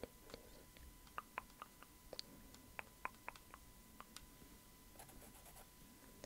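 Near silence with faint, scattered light clicks and taps: wooden measuring sticks handled close to the microphone.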